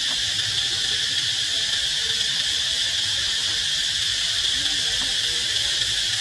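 Steady high-pitched buzzing of an insect chorus, even and unbroken throughout.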